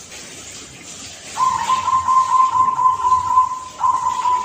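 Young local zebra dove (perkutut) singing: after a quiet start, a long run of quick, even cooing notes at one pitch begins about a second and a half in, and a new phrase starts near the end. The song is of the 'klar ke te kung' type, ending on a 'kung' note.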